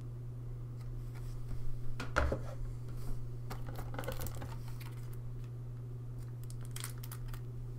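Clear plastic box insert and game cards being handled and lifted out: crinkly rustles and small clicks in short spells about two seconds in, around four seconds in and again near seven seconds, over a steady low hum.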